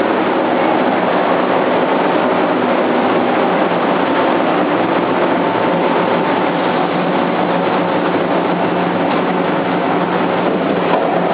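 Microwave roasting machine for sunflower seeds running: a loud, steady mechanical noise with a faint steady whine in it.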